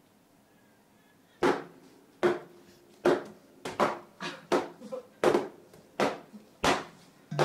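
A stick striking a paper piñata: a run of sharp whacks starting about a second and a half in, roughly one every three-quarters of a second, with lighter taps between them.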